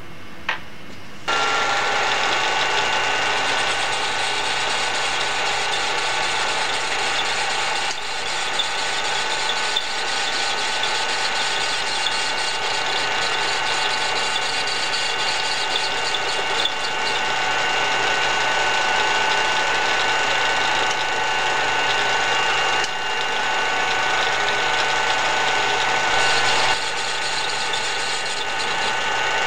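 A couple of clicks, then a small gear-head lathe-mill combination machine starts about a second in and runs steadily, with a whine of several fixed tones. It is turning a miniature radial-engine cylinder, cutting its cooling fins.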